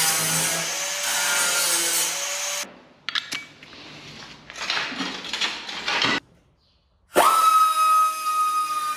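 A power tool runs on the car's sheet metal for about two and a half seconds, followed by quieter, irregular clattering and scraping of tools on metal. After a brief silence, music starts about seven seconds in.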